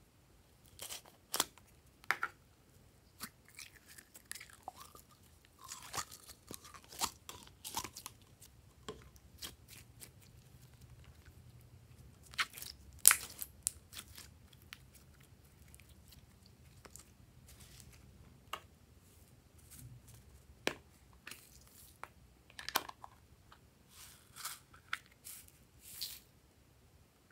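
Yellow slime being squeezed by hand out of a plastic squeeze container: scattered sharp clicks, crackles and squishes at irregular intervals, the loudest click about halfway through.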